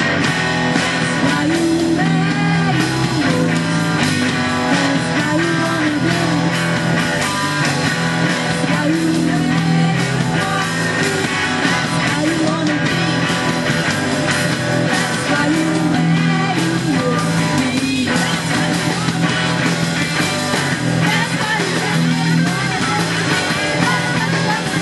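Live band playing a rock song: electric guitar, bass guitar and drum kit, with a woman singing lead.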